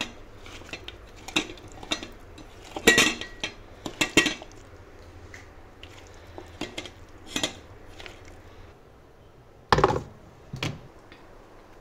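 Stainless steel bowl clinking and knocking as broccoli florets are mixed by hand in a paste. Near the end come two louder knocks about a second apart as the bowl is set down on a refrigerator shelf.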